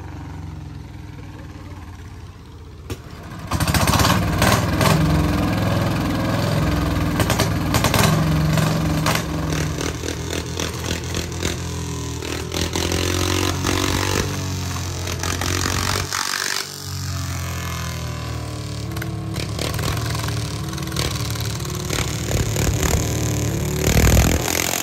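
Engine of a modified racing rice tractor running loud and revving, coming in suddenly a few seconds in and dropping off briefly about two-thirds of the way through.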